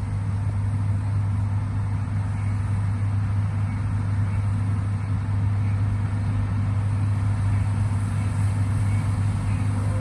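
Steady low engine drone of farm machinery: a John Deere S-Series combine harvester cutting wheat, with a tractor and grain trailer close by.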